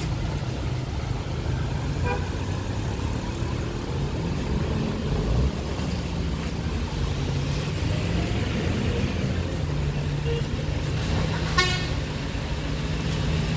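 Heavy truck engines running steadily under load on a steep climb, a low drone. Brief vehicle horn toots sound about two seconds in and again near the end.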